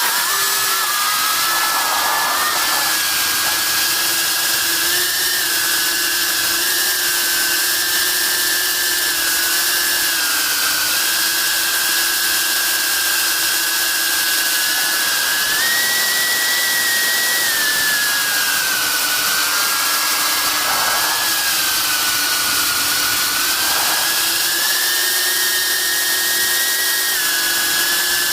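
Eachine Cvatar FPV quadcopter's brushless motors and propellers whining in flight. The pitch drifts slowly up and down with the throttle, heard close from the camera mounted on the drone.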